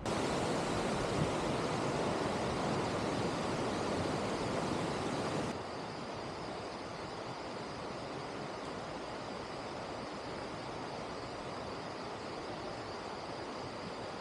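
Steady rushing noise that drops abruptly to a quieter level about five and a half seconds in.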